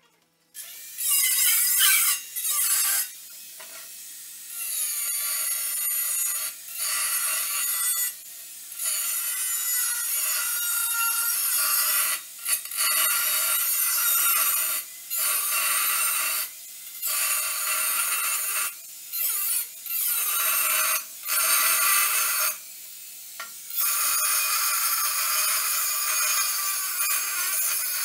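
Handheld angle grinder with a cut-off disc cutting through steel box tubing, starting about half a second in and running in long cutting stretches broken by short lulls every few seconds.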